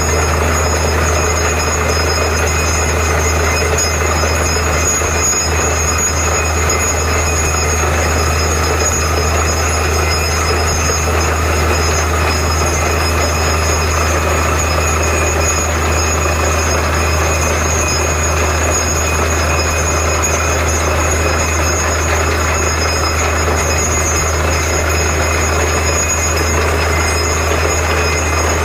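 Borewell drilling rig running steadily at full noise, with water and mud gushing and spraying out of the borehole around the drill pipe. A constant low drone with a few steady high whines over a rushing hiss, unchanging throughout.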